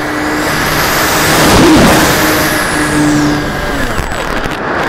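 Model airplane's motor and propeller humming, with air rushing past the onboard camera. The sound swells loudest about halfway through, its pitch arching up and back down as the plane dives and banks.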